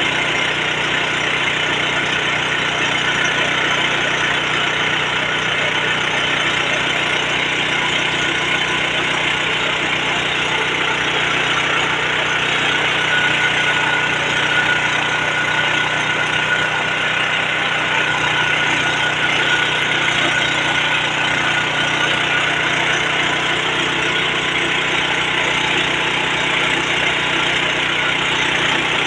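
Mini rice milling machine running steadily: a continuous, even mechanical noise that does not change.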